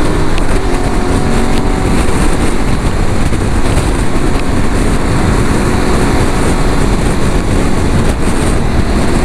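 Aprilia Tuareg 660 motorcycle being ridden, its parallel-twin engine running under heavy wind noise on the microphone. The engine's tones are plain in the first two seconds, then mostly low rushing wind.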